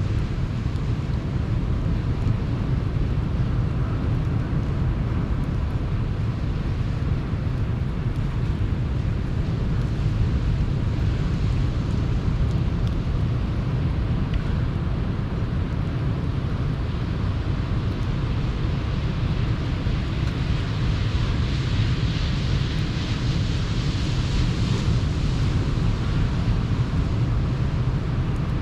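Sea surf washing on the shore with wind rumbling on the microphone, steady throughout, a wave hissing in more strongly about three-quarters of the way through.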